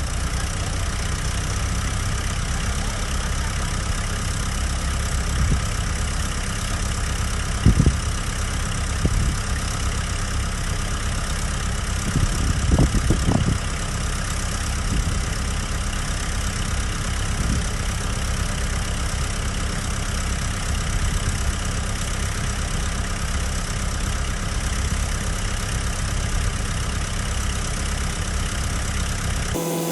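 Heavy diesel engine of earthmoving machinery running steadily, with a few short knocks, one about eight seconds in and a cluster around thirteen seconds in. The engine sound cuts off abruptly just before the end.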